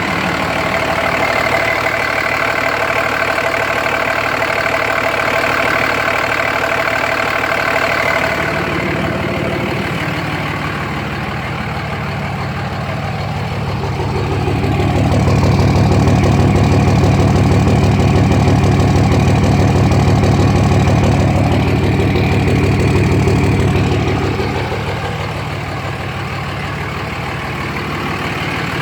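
Dodge Ram 2500's 5.9-litre Cummins inline-six turbo diesel idling steadily; the owner wonders whether the idle is rough and whether the vapour from the oil fill cap means excessive blow-by. Midway the sound turns deeper and louder for about ten seconds before easing back.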